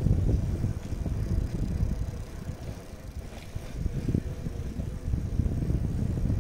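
Low, gusty rumble of wind on the microphone and road noise from riding a bicycle along an asphalt street.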